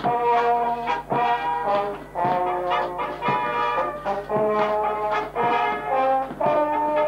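Brass band playing a tune with trombones and trumpets, in chords with a steady beat of about one strong accent a second.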